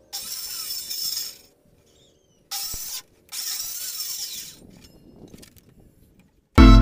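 Circular saw working on wooden bed slats in three short bursts, each cutting off abruptly, followed by faint rustling. Music comes in at the very end.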